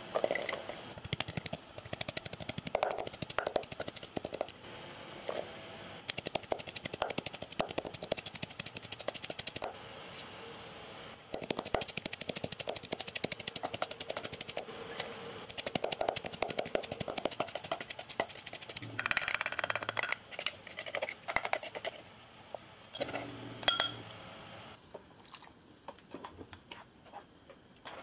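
Wooden pestle pounding garlic, shallots and green chilies in a wooden mortar: fast, even knocking strokes that stop briefly twice and thin out near the end.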